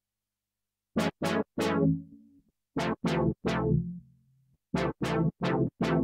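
D16 Group LUSH-101 software synthesizer playing a chord preset: short, bright chord stabs in a repeating rhythmic figure, each stab dying away quickly. They start about a second in, after silence.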